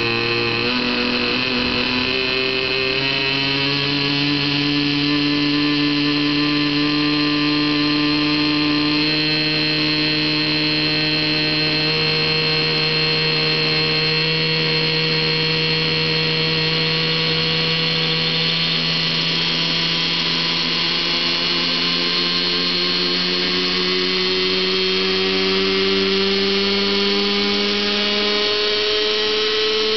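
Radio-controlled model helicopter spooling up on the ground: a steady mechanical whine from its drive and main rotor that slowly rises in pitch as the rotor gathers speed.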